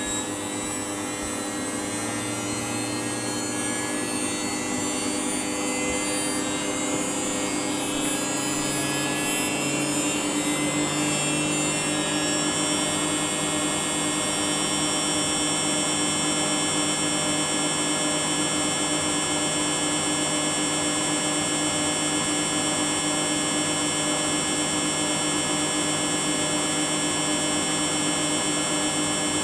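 Washing machine drum speeding up into a spin: a motor whine rises gradually for about thirteen seconds, then holds at a steady high speed.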